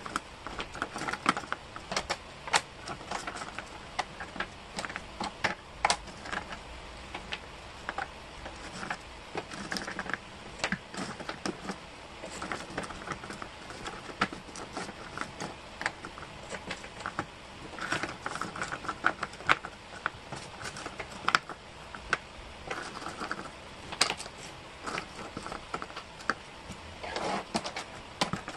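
Small, thin wooden jigsaw pieces clicking and clattering against each other as hands sort and pick through a loose pile, in irregular flurries of light taps with an occasional sharper click.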